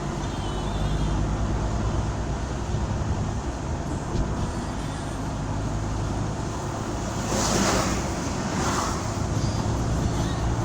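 Steady vehicle engine and road noise while travelling on a road. Two brief swells of hiss come about seven and a half and nine seconds in.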